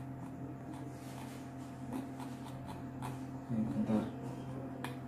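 Faint computer-mouse clicks over a steady low electrical hum, with a brief murmur of a voice a little past halfway.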